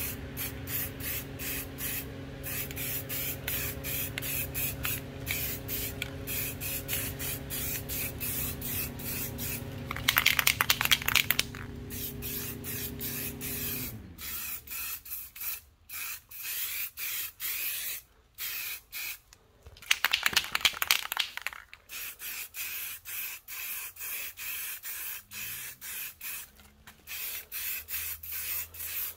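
Aerosol spray-paint can hissing in short, repeated bursts as touch-up paint is sprayed on. A steady low hum underneath stops about halfway through, and two louder spells of rapid clicks come about a third and two-thirds of the way in.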